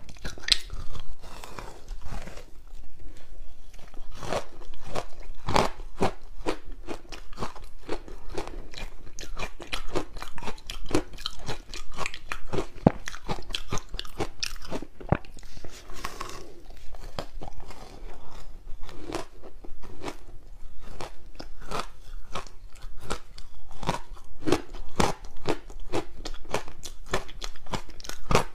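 Frozen green barley ice balls being bitten and chewed close to a clip-on microphone: soft, sticky ice crunching in a dense run of quick, irregular cracks.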